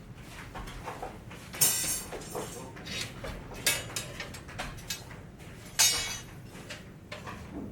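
Sharp knocks or clanks: two loud ones about four seconds apart, each trailing off briefly, with a few fainter knocks between them.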